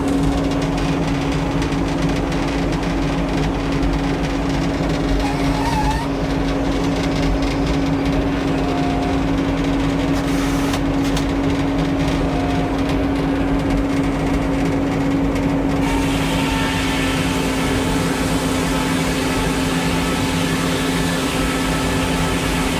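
An engine running steadily at a constant speed, a continuous even hum; a brighter hiss joins it about two-thirds of the way through.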